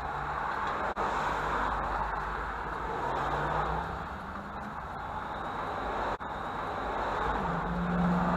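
Chevy Luv compact pickup being driven: steady engine and road noise, with the engine note stepping up and rising near the end. The sound cuts out for an instant twice.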